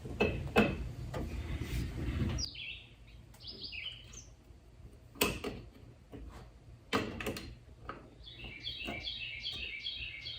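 Small birds chirping in short repeated bursts, with a few sharp clicks and knocks of tools on metal in between, the loudest about five and seven seconds in.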